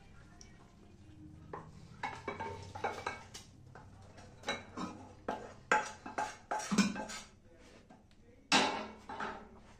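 A non-stick frying pan and a wooden spatula clattering against a ceramic bowl as curry is scraped out of the pan. It is an irregular run of knocks and scrapes that starts about two seconds in, with the sharpest knocks in the second half.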